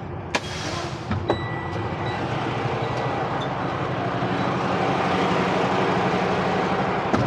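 Semi truck's diesel engine idling steadily, growing louder as the cab door opens. A sharp click with a short hiss comes near the start, a few smaller clicks follow, and another sharp click comes near the end.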